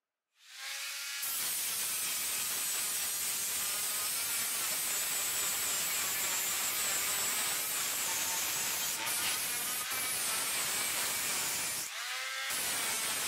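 Small hand-held angle grinder with a sanding disc spinning up, then a steady hissing grind as the disc works a welded stainless steel plate. About a second before the end the disc comes off the metal briefly, leaving the motor's whine, then goes back on.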